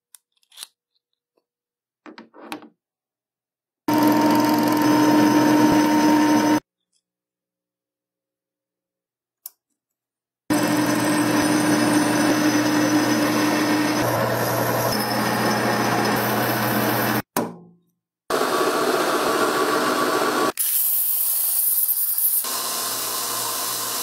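A run of short machine-shop clips split by abrupt cuts. First come a few light clicks of metal parts being handled. Then a metal lathe runs with a steady hum while turning a stainless steel part, and near the end a bench buffing wheel runs as a small metal piece is polished.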